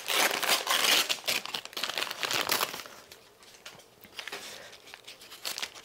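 Brown paper wrapping crinkling and rustling as a shipped plant is unwrapped by hand, busiest for the first couple of seconds, then softer scattered crinkles.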